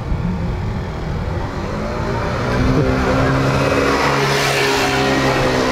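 A motor vehicle's engine running at steady revs with a steady hum, growing louder about halfway through.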